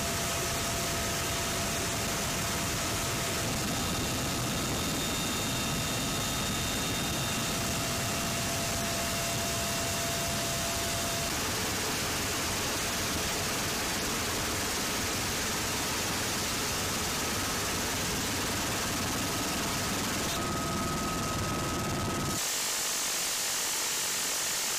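Helicopter in flight heard from the open door gunner's position: a steady rush of engine, rotor and wind noise with a few constant high whining tones. The sound changes abruptly twice near the end, first losing its top, then its low rumble.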